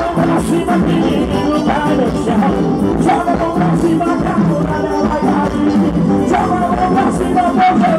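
Live gospel praise band playing and singing through a PA: a lead voice over accordion, keyboard and drums with a steady beat.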